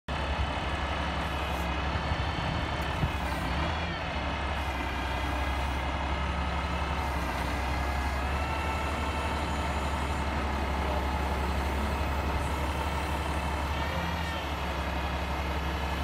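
Truck-mounted Prentice knuckle-boom log loader at work: the truck's diesel engine runs steadily under a whine from the hydraulics. The whine wavers in pitch briefly about four seconds in and again near the end as the boom and grapple move.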